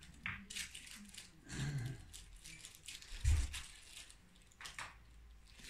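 Handling noise from a wireless microphone's belt pack being turned over and fiddled with for a battery change: scattered small clicks and rustles, a dull thump about three seconds in, and faint murmured voices.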